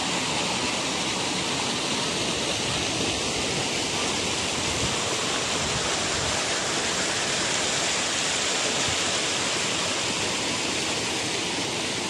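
Stream water rushing and splashing over rocks, a steady, unbroken rush.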